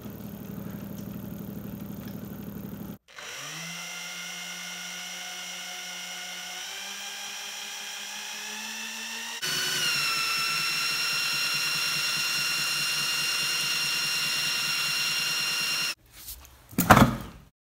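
Electric drill spinning the shaft of a home-made magnet-rotor alternator built from an electric motor, its whine stepping up in pitch and then running louder and steady. It begins with a duller hum from a belt-and-pulley motor rig running. Near the end come a few brief, loud knocks and scrapes.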